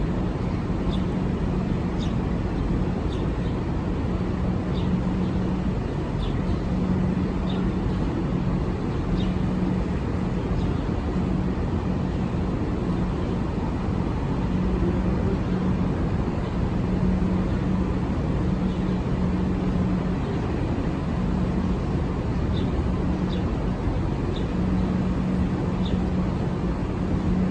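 A river tour boat's motor running steadily under way: a low hum that comes and goes over a steady low noise, with brief high chirps now and then.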